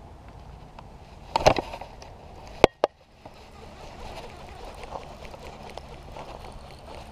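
Handling noise from a baitcasting rod and reel: a cluster of loud knocks about a second and a half in, then two sharp clicks just under three seconds in, over a steady low background noise.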